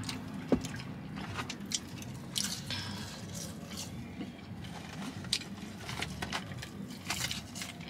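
Close-up eating sounds: wet chewing and mouth noises from a person eating fried chicken tenders, with scattered small clicks and crackles over a low steady hum.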